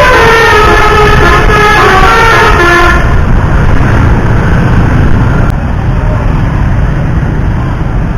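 A bus's telolet basuri horn playing a quick tune of changing notes, stopping about three seconds in. After that only a loud low vehicle rumble remains.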